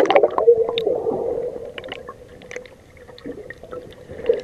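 Muffled underwater sound from a camera just plunged beneath the sea surface. Churning water and bubbles fade over the first second, then scattered faint clicks and a steady hum go on.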